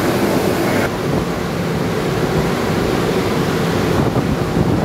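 Steady rushing noise of wind and churning sea water, with wind buffeting the microphone; the hiss thins about a second in.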